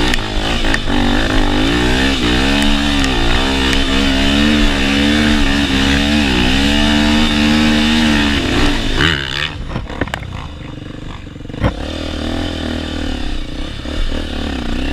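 Honda XR 250 Tornado's single-cylinder four-stroke engine running under throttle, its revs rising and falling over and over for about eight seconds. It then drops to a quieter, lower running, with a single sharp knock near the end.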